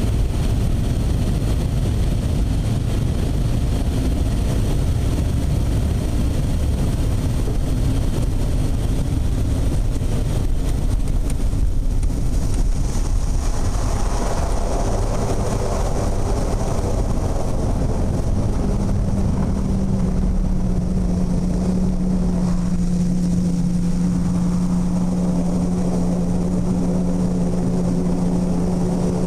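Amphibious floatplane's propeller engine heard from inside the cabin as the plane runs on the water, with water and wind rushing against the hull. From about 18 seconds in the engine settles into a steady drone.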